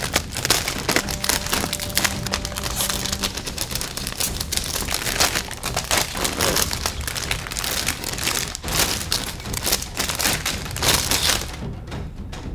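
Clear plastic bags crinkling and crackling as plastic model-kit runners are pulled out and handled. The crinkling stops near the end, leaving faint background music.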